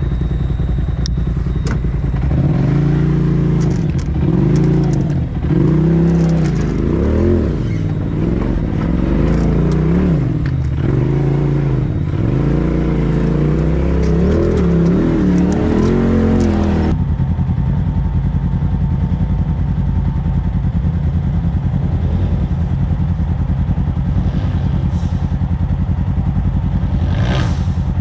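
Polaris RZR side-by-side's engine revved in repeated short bursts, pitch rising and falling, with occasional clatter, as it crawls up rock ledges. About two-thirds of the way in it gives way abruptly to a steadier engine running at low revs.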